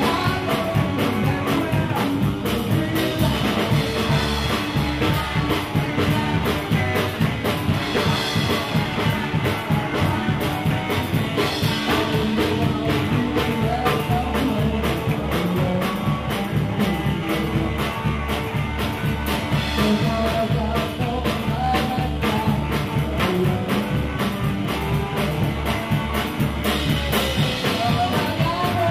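A live rock and roll band playing: electric guitar over a drum kit keeping a steady beat, with a voice singing at times.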